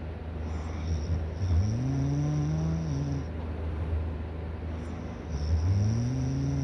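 A person snoring in their sleep: two long pitched snores about four seconds apart, each rising at the start and then holding steady.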